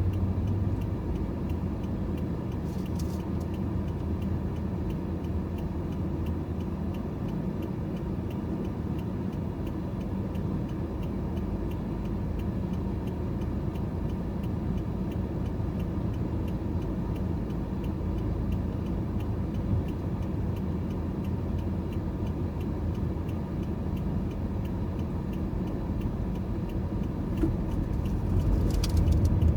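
Car driving along a road: steady low engine and tyre rumble, growing a little louder near the end.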